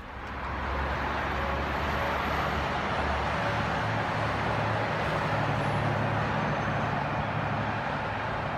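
Steady rumble of vehicle engines and traffic-like noise, with a low engine drone that shifts in pitch about three seconds in.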